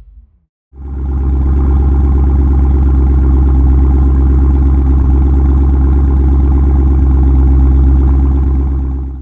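2017 Chevrolet Camaro SS 1LE's 6.2-litre LT1 V8 running at a steady, unchanging engine speed through a Stainless Works cat-back exhaust, with a low, even exhaust note. It comes in quickly about a second in and cuts off abruptly at the end.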